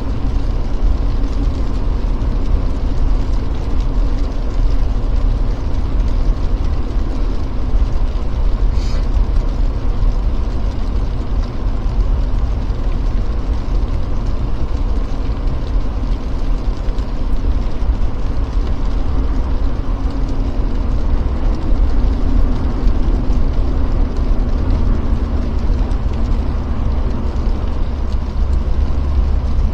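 Jeep Gladiator driving on snowy roads: a steady low rumble of engine and tyre noise, with a single brief click about nine seconds in.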